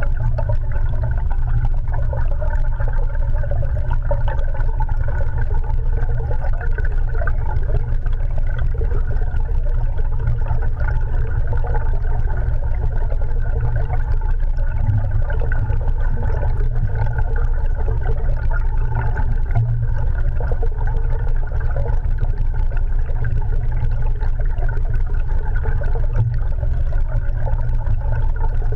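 Steady underwater rumble of lake water against a GoPro Hero 3 Black in its waterproof housing, with a low, even drone and a wavering mid-range wash.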